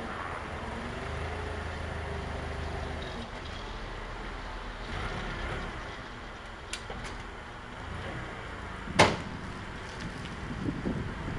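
A vehicle engine running steadily while a tractor unit is manoeuvred slowly. There are a few light clicks and one sharp, loud clank about nine seconds in.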